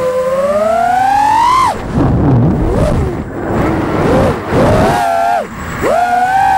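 Electric whine of a 5-inch FPV quadcopter's four T-Motor Pacer V3 2207 1750KV brushless motors spinning Gemfan props. The whine climbs in pitch, breaks off after under two seconds into a rough, wavering sound of shifting lower tones, then returns as a steady whine near the end.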